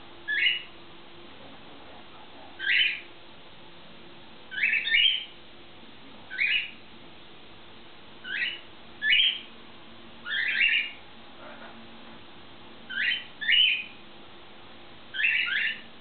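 Cockatiels calling: about a dozen short, high calls, one every second or two, some in quick pairs.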